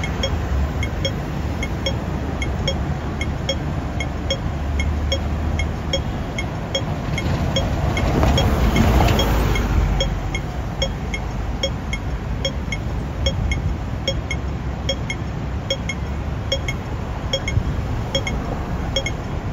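Hong Kong pedestrian crossing signal ticking steadily, about two short beeps a second: the slow rate that means wait. Under it, the steady noise of street traffic, which swells about eight seconds in as a vehicle passes.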